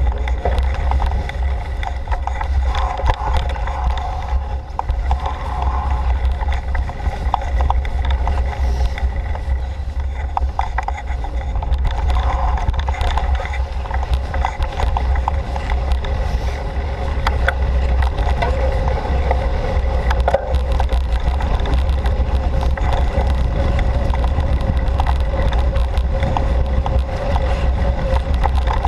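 Bicycle ridden over a rough trail: a steady low rumble of wind and tyre noise, with frequent small rattles and clicks.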